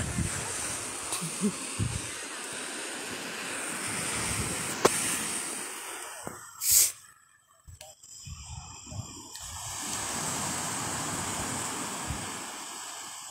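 Surf breaking on a beach: a steady hiss of waves that swells and fades twice. A brief sharp hiss cuts in about seven seconds in, followed by a short near-silent gap.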